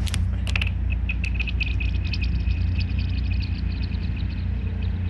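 Something thrown onto thin pond ice lands with a few sharp clicks, then skitters away across it in a quick run of ticks with a high ringing tone that fades out over about four seconds. A steady low rumble lies underneath.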